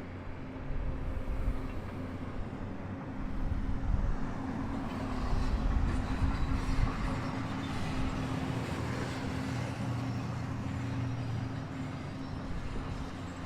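An engine running steadily, a low hum with rumble underneath, growing somewhat louder about five seconds in.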